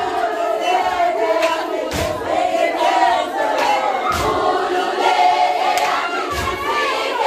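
A group of women singing and chanting together in Zulu, with shouts among the voices, and a heavy thud of dancers' feet stamping about every two seconds.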